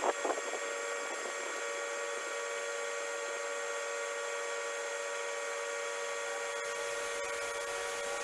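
A steady hum of several unchanging tones over a faint hiss, with a few brief knocks right at the start.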